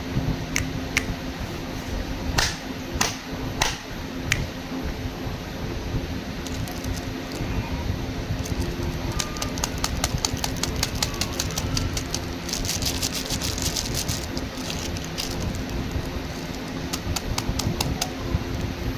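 Plastic candy packaging being handled: scattered sharp clicks and taps, with a dense burst of rapid crinkling about thirteen seconds in, over a steady low hum.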